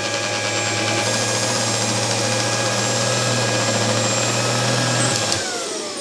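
UWANT M300 handheld mattress vacuum running steadily, a high motor whine over a low hum. It is switched off about five seconds in, and the whine falls as the motor spins down.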